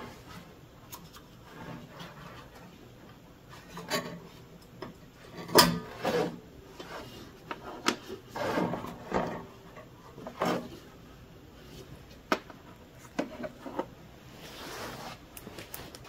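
Hitch pin and washer being worked off the hood pivot bracket of a Craftsman riding mower by hand: small metal parts clicking and scraping, with irregular sharp clicks, the sharpest about five and a half seconds in, between stretches of rubbing.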